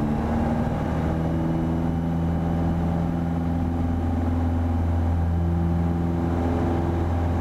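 Piper Warrior's four-cylinder piston engine running steadily at full power on the takeoff roll of a touch-and-go, a strong low drone with several steady tones above it.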